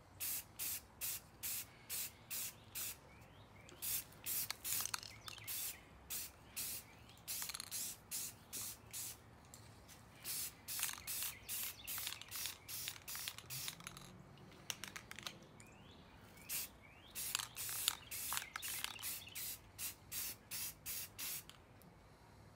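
Aerosol spray-paint can hissing in short bursts, about two a second, in several runs with brief pauses, as a bicycle frame is spray-painted in quick passes.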